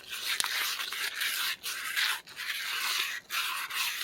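Metal being scrubbed by hand with an abrasive in quick back-and-forth strokes, several a second, with short breaks between them. This is rust being loosened off the seal bore of a Ford 1910 tractor's front axle housing so that a new seal will fit correctly.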